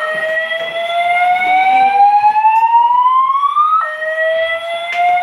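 EST voice evacuation fire alarm speaker sounding its whoop tone, a loud pitch that rises slowly for about four seconds, drops back and starts rising again.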